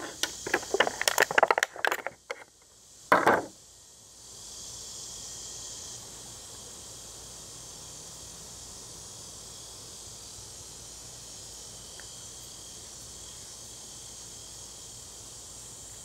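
Clear plastic clamshell packaging rustling and clicking as a flashlight is lifted out of it, with one louder crackle about three seconds in. Then a steady, high-pitched insect chorus rises about four seconds in and holds.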